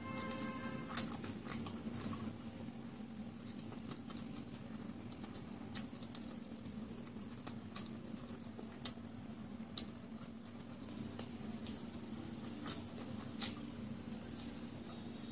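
Close-up chewing and wet mouth clicks from eating fried noodles and a chicken lollipop by hand, with scattered sharp clicks, the loudest about a second in. A steady low hum and a faint high whine run underneath.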